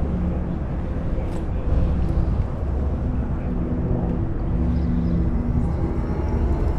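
A steady low engine drone from a distant motor, with faint steady hum tones and no sharp events.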